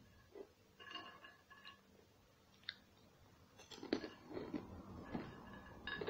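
A person chewing food close to the microphone: irregular mouth clicks and smacks, thicker and more frequent in the second half.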